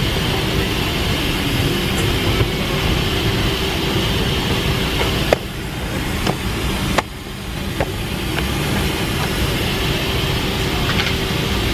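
Steady cabin noise inside a Boeing 777-300ER airliner. Two sharp clicks come about five and seven seconds in, each followed by a brief drop in the noise.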